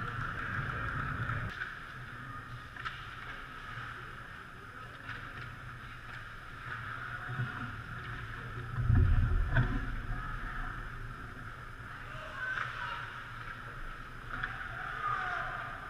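Ice hockey play on the rink: skate blades scraping the ice and sharp stick or puck clicks, with a heavy low thud about nine seconds in.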